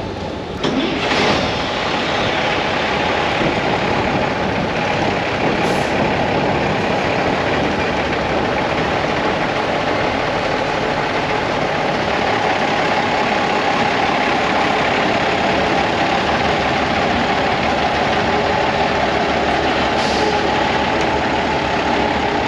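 Steady, loud noise of a running vehicle engine with road noise, starting abruptly about a second in.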